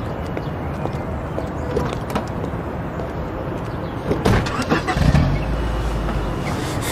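Steady outdoor traffic noise. About four seconds in, a few sharp clicks as a car's driver door is opened, followed by a low rumble for about a second.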